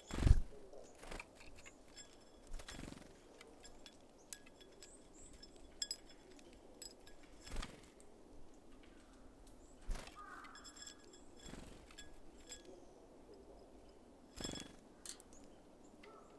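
Small birds at a feeder, tapping and knocking at the seeds in a series of sharp taps, the loudest right at the start and others every few seconds, with faint high ticks in between.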